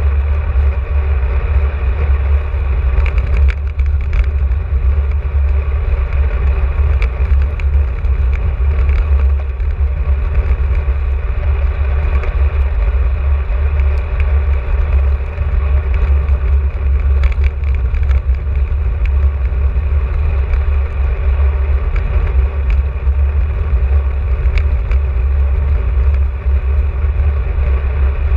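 Steady low rumble of wind buffeting the microphone and road noise from riding a bicycle, with a few faint scattered ticks.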